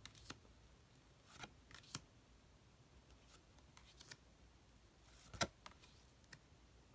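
Tarot cards being handled: a handful of faint snaps and taps of stiff cardstock as single cards are drawn from a fan and laid onto the front of the deck, the loudest about five and a half seconds in.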